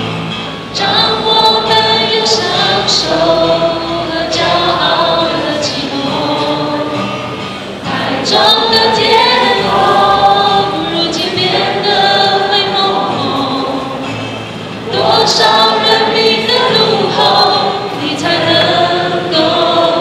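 A woman singing a song into a microphone while playing an acoustic guitar.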